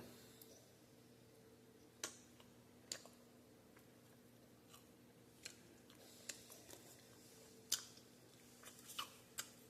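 Quiet eating sounds of a soft glazed donut being chewed close to the microphone: scattered faint mouth clicks and smacks, over a faint steady electrical hum.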